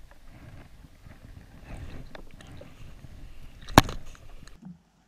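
A hooked snapper being landed beside a jet ski: low, uneven water and handling noise, with one sharp knock a little under four seconds in.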